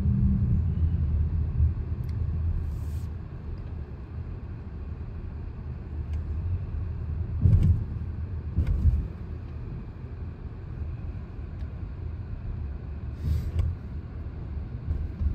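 Low, steady rumble inside the cabin of a Haval H6 hybrid rolling slowly, with a few short thumps, the loudest about seven and nine seconds in.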